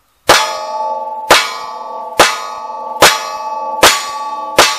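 Six bullet hits on steel plate targets from a Smith & Wesson Model 65 .357 Magnum revolver firing .38 Special 158-grain rounds, roughly one a second. Each hit is a sharp crack followed by a ringing clang that carries on under the next, as the six-shot cylinder is emptied.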